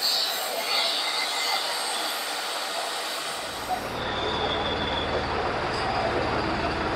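A hissing workshop noise with faint high tones. About three seconds in it gives way to a New Holland tractor's diesel engine idling with a steady low rumble.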